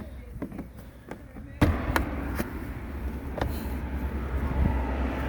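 Plastic lower grill cover being pushed and clipped into a car's front bumper: a few sharp plastic clicks and knocks, the first and loudest about a second and a half in, over a steady low rumble that starts with it.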